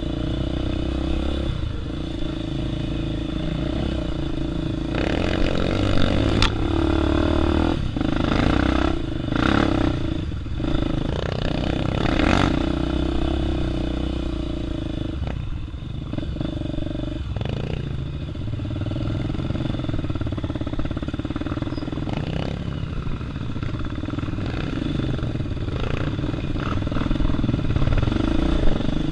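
Dirt bike engine running at low trail speed with the throttle rising and easing, heard from on the bike, with clatter and a few sharp knocks as the bike bounces over rough dirt track.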